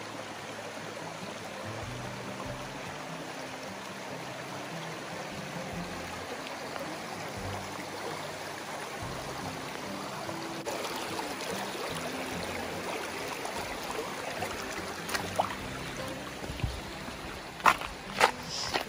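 Shallow mountain stream running over rocks, under soft background music. Near the end come a few sharp clicks of footsteps on the stream's stones.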